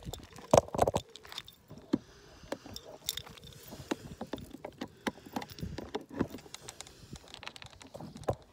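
Handling noise of a phone being set up on asphalt: irregular clicks, knocks and rubbing close to the microphone, loudest about half a second to a second in.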